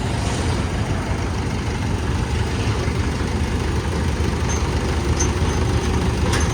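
A vehicle's diesel engine running steadily, a low, even rumble.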